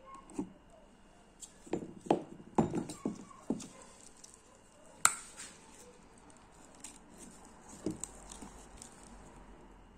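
Small metal parts of a disassembled Marksman air pistol being handled with pliers and gloved fingers: irregular clicks and knocks of the piston rod, its spring and a small clip, several close together about two seconds in and a single sharp click about halfway.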